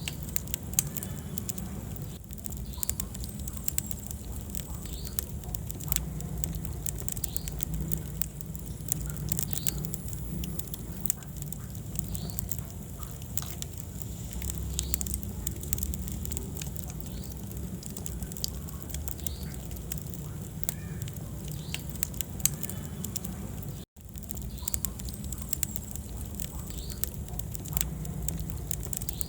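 Wood fire burning in a fireplace: irregular sharp crackles and pops over a low, steady rumble of flame. A split-second gap breaks the sound about four-fifths of the way through.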